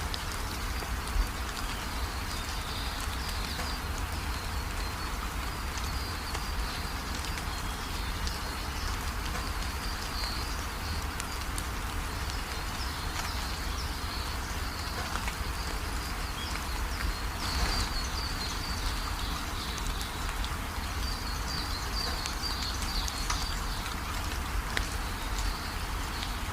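Rain falling steadily, an even hiss with many small drops ticking, under a steady low rumble. A high, broken chirring from an animal, an insect or bird, runs along with it.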